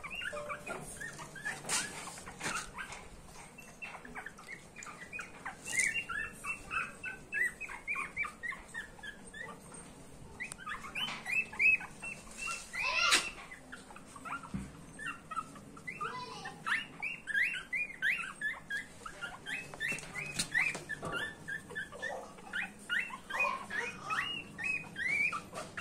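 Young Shih Tzu puppies whimpering and squeaking: many short, high-pitched calls, repeated almost without a break.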